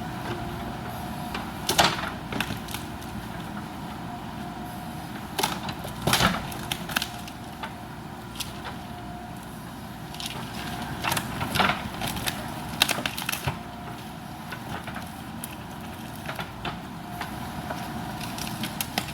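JCB backhoe loader's diesel engine running steadily while bamboo roots crack and splinter as the machine tears them out. There are several sharp cracks, the loudest about two seconds in and about six seconds in, with a cluster more between eleven and thirteen seconds.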